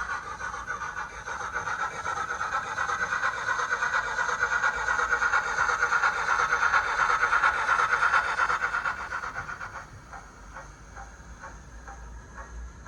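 ZIMO sound decoder playing an A4 steam locomotive sound file through a small speaker in an OO gauge model locomotive: rapid steam exhaust chuffs that build up louder, then drop away about ten seconds in to quieter, more widely spaced beats.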